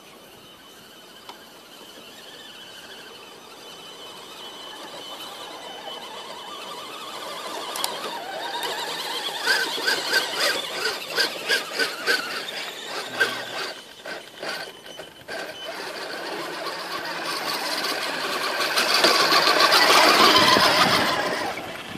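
Electric motors and geared drivetrains of Axial and Tamiya CC01 RC scale crawlers whining as they climb a slope, growing steadily louder as they come closer. A stretch of rapid sharp clicks runs through the middle, and the sound is loudest near the end as a truck passes close by.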